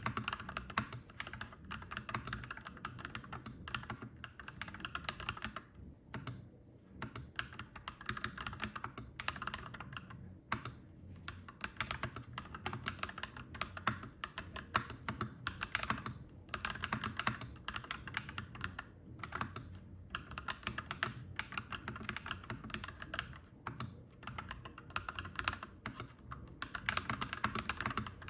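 Clacky mechanical keyboard typing: rapid runs of keystrokes broken by brief pauses every few seconds, over a faint steady low rumble.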